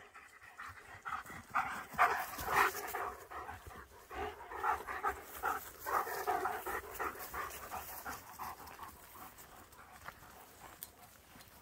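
German shepherd panting in quick, rapid breaths. The panting is loudest a couple of seconds in and fades toward the end.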